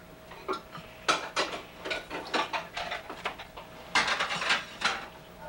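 Irregular clinks, clatters and crunches of popcorn being eaten off a plate, coming in short clusters roughly once a second.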